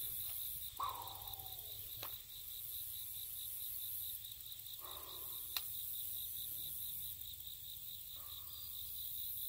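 Insects chirring in summer grass: a steady, rapidly pulsing high chirp, with a higher hiss that swells and fades every few seconds. A faint click comes a little past halfway.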